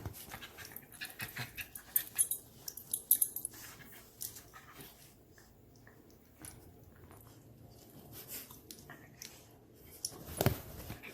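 A dog at play: many small clicks and scuffs over the first few seconds, quieter for a while, then one louder sound about ten and a half seconds in.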